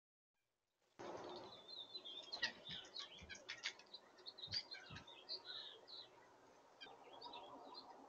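Small songbirds chirping and calling around a backyard feeder: many short, high calls that overlap, starting about a second in after a moment of silence. A few soft low thumps sound in the middle.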